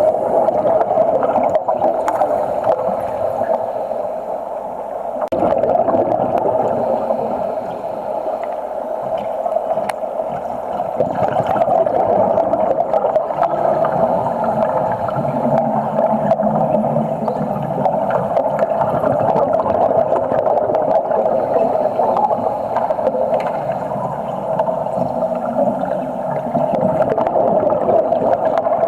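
Underwater burning with a Broco exothermic cutting rod: a steady bubbling, gurgling rush that dips briefly a few times.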